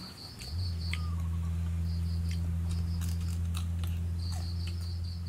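Insects chirping in repeated trains of short high pulses. A steady low hum comes in about half a second in and is the loudest sound, with a few sharp clicks over it.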